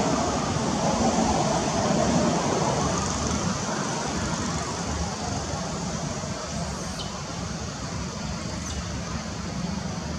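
Steady background rumble and hiss, a little louder in the first few seconds and then easing.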